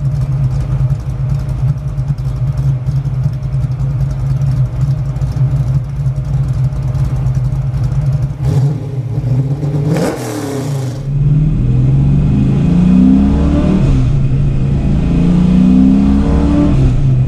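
Carbureted 363 cubic-inch Dart small-block V8 with a custom-grind cam and long-tube headers, idling at the exhaust with a steady, choppy beat and blipped once about ten seconds in. Then heard from inside the cabin as the car pulls away and accelerates, the engine's pitch climbing and dropping several times through the gears.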